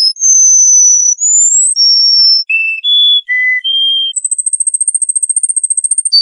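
Songbird singing: a string of clear, pure whistled notes held at different pitches, one gliding upward, then a fast high trill starting about four seconds in.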